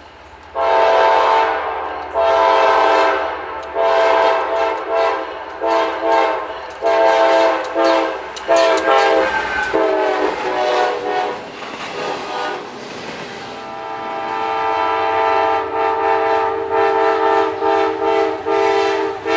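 Multi-chime train horn (air horn) sounded in a long run of short and longer blasts, some in quick succession. Near the end it settles into a longer held chord broken by a few quick pulses.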